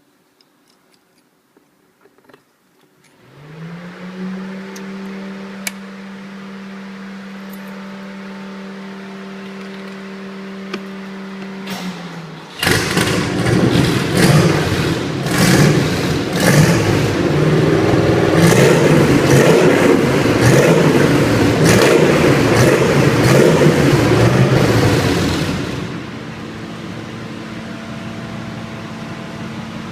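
An engine or motor starts up and runs with a steady hum, is revved loudly and roughly for about thirteen seconds, then drops back to a steady, slightly higher-pitched run.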